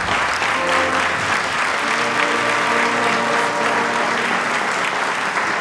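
Theatre audience applauding steadily, with the orchestra playing sustained chords underneath.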